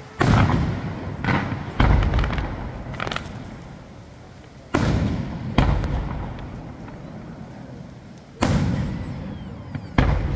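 Aerial firework shells bursting in a display: a string of sharp, deep booms, about six loud ones and a couple of lighter ones, spaced one to three seconds apart, each dying away slowly.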